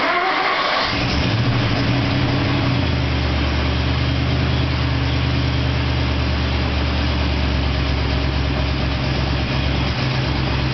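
An old pickup's carbureted engine bursts into life and catches within about a second, then settles into a steady idle about three seconds in.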